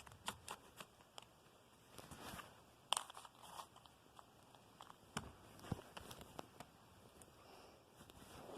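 Faint handling noise: scattered small clicks and brief crackly rustles from hands moving slime and small props, the sharpest click about three seconds in.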